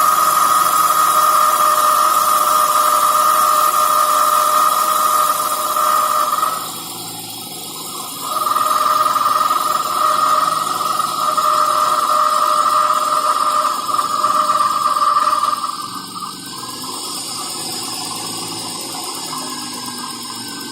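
BMW E46 320Ci's M52TUB20 straight-six running after a cold start, with a loud, steady high-pitched whine from a failing water pump whose shaft has play. The whine drops out for a moment about six and a half seconds in, comes back, then stops about fifteen seconds in, leaving quieter engine running.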